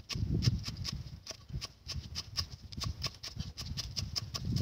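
Cleaver chopping spring onions on a round wooden chopping block: rapid, even knocks, about five a second, each with a dull thud of the blade into the wood.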